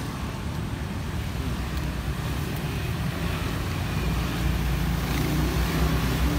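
Steady road traffic noise from a busy street, with a vehicle's engine hum growing louder about four seconds in as it passes.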